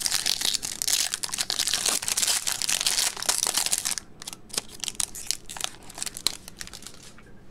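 Foil wrapper of a trading-card pack torn open and crinkled by hand. A dense, loud crinkling lasts about four seconds, then thins to scattered crackles as the foil is peeled back.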